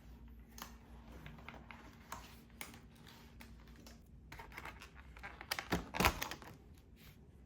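A run of light, irregular taps and clicks, with a louder cluster about five and a half to six seconds in.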